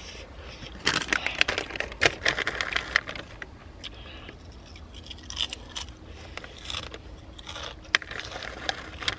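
Plastic snack bag crinkling loudly as it is handled, strongest from about a second in for two seconds, then scattered crackles of the bag and the crunch of potato chips being bitten and chewed.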